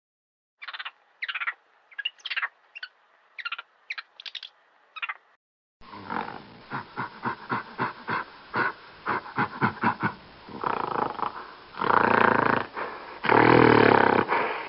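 Monkey calls: a string of short squeaky calls, then after a brief gap a rhythmic run of calls, a few a second, that builds into long, loud screams near the end.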